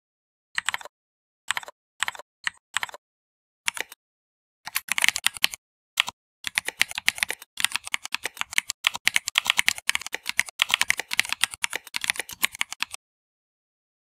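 Computer keyboard typing: a few separate keystrokes in the first four seconds, then a run of fast, continuous typing that stops abruptly near the end.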